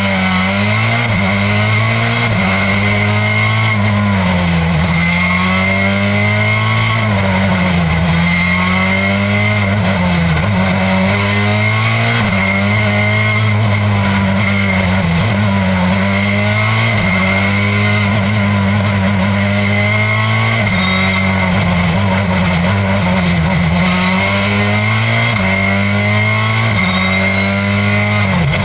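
Citroën C4 WRC rally car's 2.0-litre turbocharged four-cylinder engine at racing speed, its note climbing and dropping over and over as it accelerates and shifts gear.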